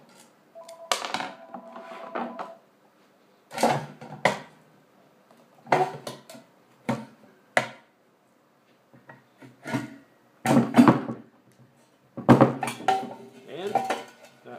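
Stainless-steel ion pump parts and loose M6 bolts handled on a wooden tabletop: a string of sharp metal clinks and knocks, the loudest near the end as the pump body is gripped and worked out of its magnet housing.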